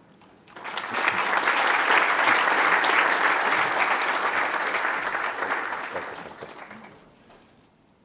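Audience applauding, rising quickly about half a second in, then dying away over the last few seconds.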